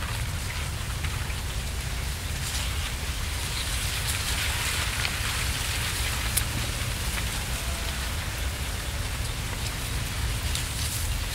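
Wind gusting through foliage: a steady rustling hiss that swells around the middle, over a low rumble of wind on the microphone.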